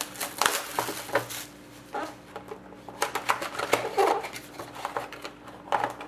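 Plastic shrink-wrap crinkling as it is torn off a cardboard trading-card box, dense for the first second or so. Then the box flap and a white card-stock insert are handled, with scattered light taps and paper rustles.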